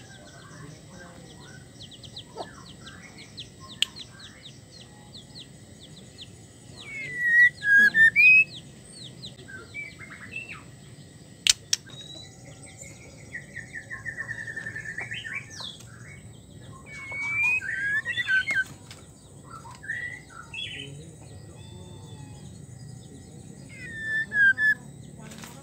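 White-rumped shama calling: short whistled notes and sliding phrases, loudest in bursts about 7, 17 and 24 seconds in, with a fast rattling trill around 14 seconds. A faint rapid ticking runs through the first few seconds, and a single sharp click comes near the middle.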